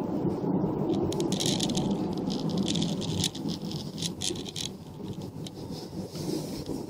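Steady rumble of a car's engine and tyres heard from inside while driving, with irregular rattling clicks over it from about a second in. The rumble drops a little about halfway through.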